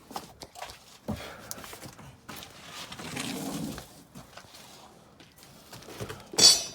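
Scattered light knocks and clicks of parts and tools being handled while fitting a car's front bumper, with one loud, sharp metallic clink that rings briefly near the end.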